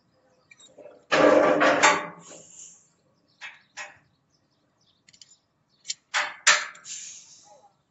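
Irregular metallic clanking and scraping of steel, in two loud ringing bouts, one about a second in and another around six seconds in, with a few sharp clicks between them.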